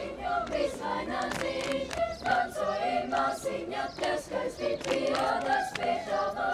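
Children's choir singing together, several voices holding and moving between sustained notes.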